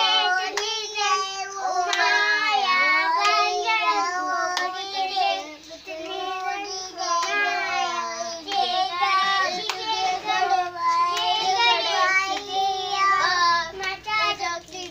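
Children singing a hand-clapping game song, high young voices together, with sharp claps of palms meeting about once a second.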